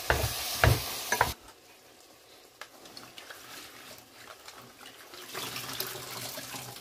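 A wooden spatula stirs chicken and potatoes frying in a metal pot, with sizzling and three knocks against the pot; this cuts off abruptly about a second in. Near the end, water splashes as hands wash spinach leaves in a basin.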